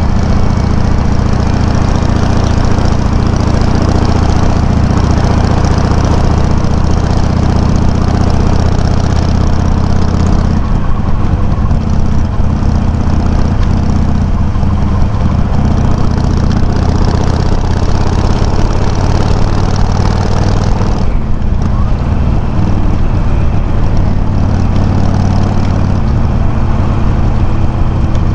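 Harley-Davidson Sportster 883's air-cooled V-twin running steadily at low revs through slip-on mufflers with low baffles, heard from a microphone mounted on the bike. The sound shifts slightly twice, about a third and two-thirds of the way through.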